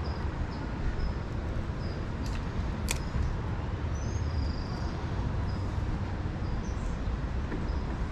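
Outdoor creekside ambience: a steady low rumble with small birds chirping briefly every second or so, and two faint clicks a few seconds in.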